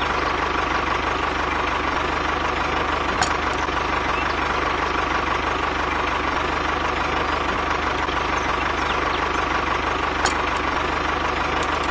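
A steady engine idling hum runs without a break. Two light knocks, about three seconds in and again about ten seconds in, come as plastic bowls are set down on the trolley bed.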